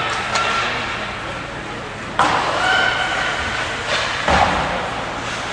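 Ice hockey play in an echoing rink: a sharp knock about two seconds in and a heavier thud a couple of seconds later, typical of the puck and sticks against the boards. Voices call out over it.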